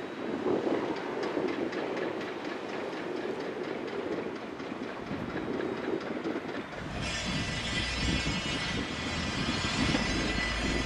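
Caterpillar 336 hydraulic excavator running as it swings its demolition grapple, engine and hydraulics working. About seven seconds in, a steady high hiss and a deeper rumble set in.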